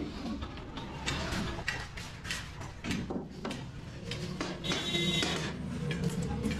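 Background music playing over short knocks and clicks of wooden planks being handled and laid down.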